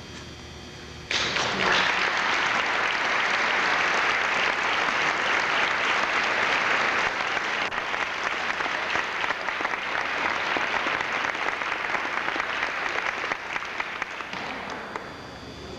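Audience applauding: the clapping starts suddenly about a second in, runs on steadily, and dies away near the end.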